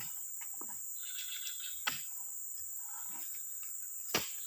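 Insects buzzing steadily at a high pitch, with two sharp thuds, about two seconds in and near the end, as oil palm fruit bunches are thrown up onto a truck bed.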